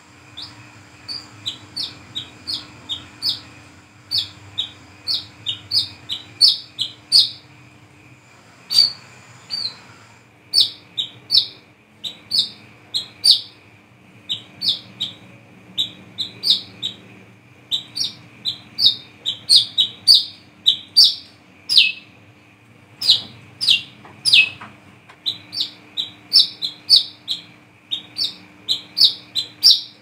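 Brown-throated sunbird (kolibri kelapa, wiceh) singing: quick runs of short, high chirping notes, several a second, broken by a few brief pauses.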